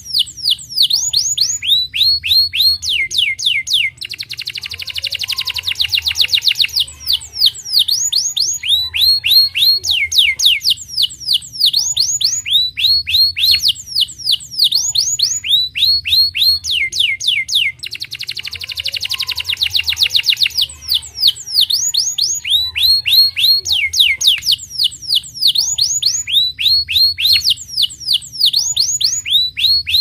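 Domestic canary singing: quick runs of falling whistled notes, broken twice by a fast buzzy rolling trill lasting a few seconds. The same song phrase comes round again about every fourteen seconds.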